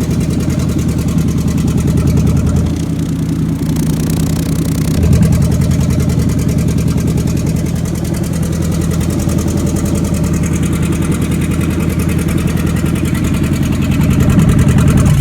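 Chevrolet 454 big-block V8 idling loudly through open exhaust collectors with no mufflers, a rapid crackling exhaust note. Partway through, the sound changes for a couple of seconds as a collector is blocked off with a towel; the owner finds the noise is exhaust crackle rather than an engine knock.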